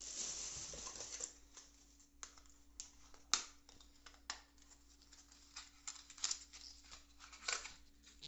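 Packaging and parts handled by hand: about a second and a half of rustling and tearing at the start, then scattered small clicks and taps, the sharpest about three seconds in.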